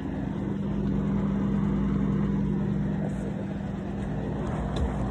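A steady low machine hum over a low rumble, with a faint click near the end.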